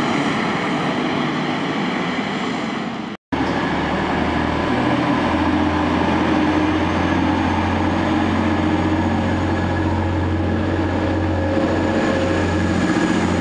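A bus engine fading as the bus pulls away, cut off suddenly about three seconds in. A Class 185 diesel multiple unit's underfloor diesel engines then hum steadily as the train runs alongside a station platform.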